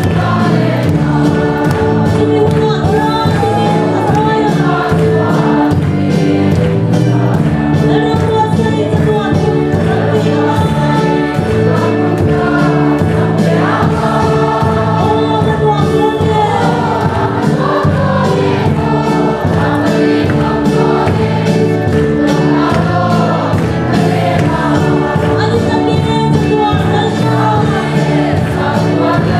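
A large church congregation singing a gospel hymn together over a steady beat.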